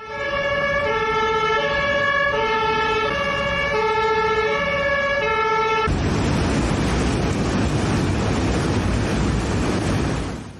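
Two-tone emergency vehicle siren alternating between a higher and a lower note about every 0.7 s. About six seconds in, it cuts abruptly to a loud, steady rushing noise.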